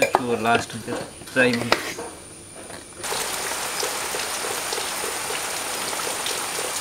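Heavy rain starting suddenly about three seconds in and keeping up a steady, even hiss, with water dripping and splashing off a roof edge; a voice is heard briefly before it.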